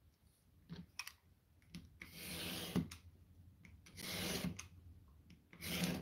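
Utility knife blade drawn down along a steel ruler, slicing through a stack of copier paper in three long rasping strokes, after a few light clicks as the knife is set in place.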